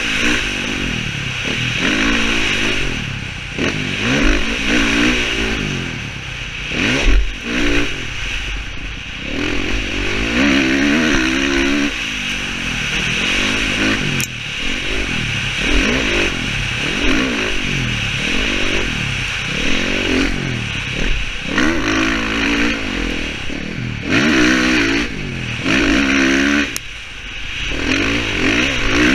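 Dirt bike engine revving hard up and down on the throttle, its pitch rising and falling every second or two as the rider accelerates, shifts and backs off, with a few brief drops in level.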